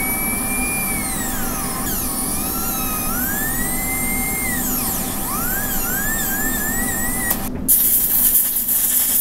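Dental handpiece whining as its bur cuts channels into a set PVS putty impression, the pitch sagging and recovering repeatedly as the bur loads and frees. About seven and a half seconds in the drill stops and an air syringe gives a loud hiss of air for about two seconds.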